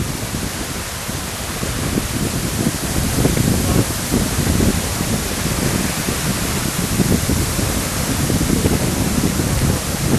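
Wind buffeting the microphone outdoors: a steady hiss with irregular low gusty rumbles.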